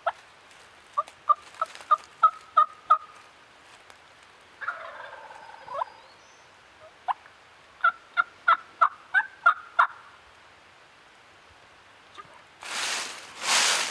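Wild turkey calling: a run of evenly spaced yelps, about three a second, then a rattling gobble about five seconds in, then another run of yelps. A loud rustle comes near the end.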